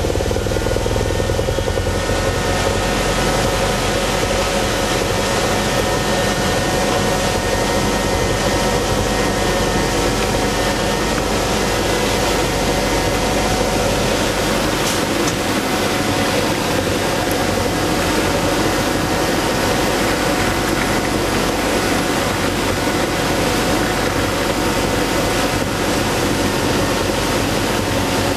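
Ice edger running steadily, its rotating cutter shaving the ice surface at deep cutting depth to take down grown-up ice. A continuous grinding noise with a few steady tones over it.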